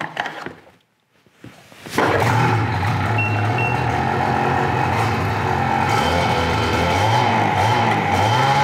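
A Ski-Doo G4 snowmobile's engine starts abruptly about two seconds in, then runs steadily, spinning the track so it can centre itself on the rails before the alignment check.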